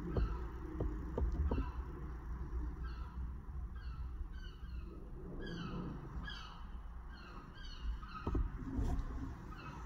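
Low rumble of an oxy-acetylene torch flame held on lead, with a bird calling over it in a run of short falling chirps, about two a second, thickest in the middle.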